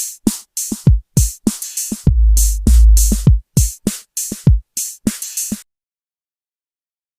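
Electronic drum-machine beat: deep kick drums that drop in pitch, mixed with sharp bright hits. It cuts off about three-quarters of the way through, followed by silence.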